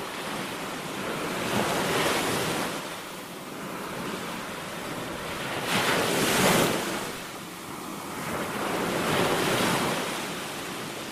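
Sea waves washing against rocks, the surf swelling three times and falling back between, with wind buffeting the microphone.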